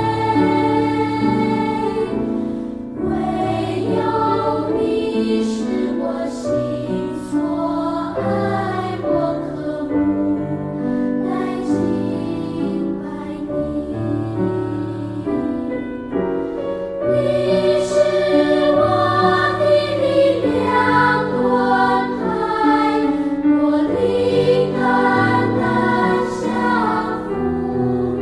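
Children's choir singing a slow choral hymn in held, layered notes as background music.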